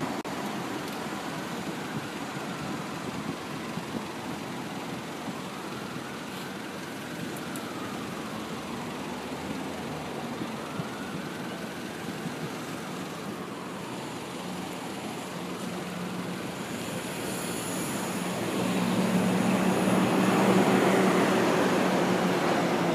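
Street traffic passing steadily beside an open railway cut, then a Metro-North commuter train approaching, its running noise building up from about two-thirds of the way through with a steady low hum and a high whine.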